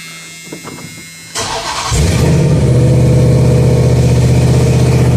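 Hellcat supercharged 6.2-litre Hemi V8, swapped into a 1982 Dodge D-100, being started: a steady high electrical whine and a few clicks, then a brief crank about a second and a half in, catching within half a second and settling into a steady, loud idle.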